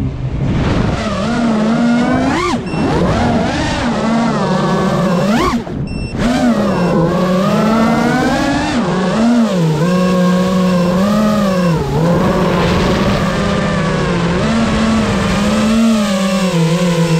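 FPV quadcopter's motors and propellers whining, the pitch swinging up and down with the throttle. There are sharp upward swoops a couple of times in the first six seconds, and the sound briefly drops away about six seconds in.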